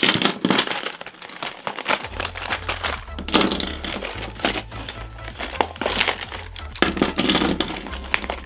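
Makeup pencils and liners clattering onto a wooden table as they are tipped out of a clear plastic zip bag, the bag crinkling as it is handled. Background music with a low bass comes in about two seconds in.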